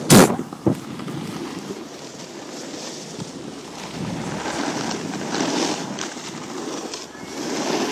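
Wind buffeting the microphone as the camera moves fast over snow: a steady rushing noise that swells and eases a couple of times. A loud thump comes right at the start.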